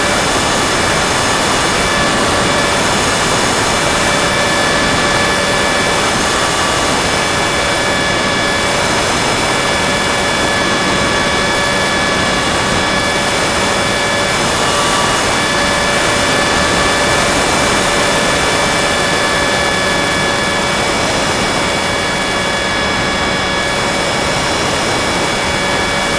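Electric motor and propeller of a Go Discover FPV airplane running steadily in flight, heard through its onboard camera: a constant whine of several even tones over a steady rushing noise.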